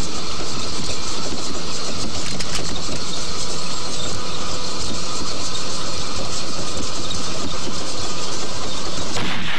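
Steady rumble and rattle of a moving train, heard from inside the car.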